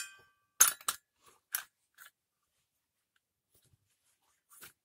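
Sharp metallic clicks and clanks from handling a toothed steel brush-cutter blade and its retaining nut and cup washer. The first knock leaves the blade ringing briefly. Several more clicks come in the first two seconds, then a couple of faint ones near the end.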